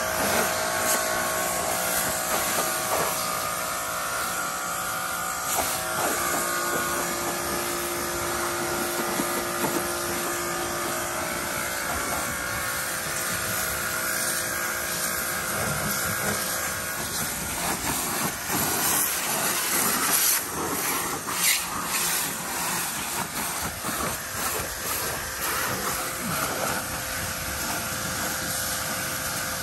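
Kärcher electric pressure washer running steadily, its motor giving a constant whine under the hiss of the high-pressure water jet spraying a pickup's tyres and body. The spray sounds louder and more uneven around twenty seconds in.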